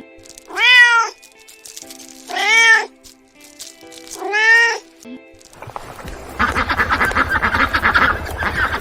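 A cat meowing three times, each meow a short call that rises and falls, with faint music underneath. From just past halfway, a dense, rapidly pulsing grainy sound with a low rumble takes over.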